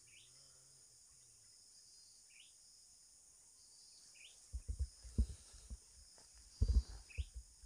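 Steady high buzzing of crickets and other insects, with a few short chirps. From about halfway on, low bumps and rustles of handling close to the microphone.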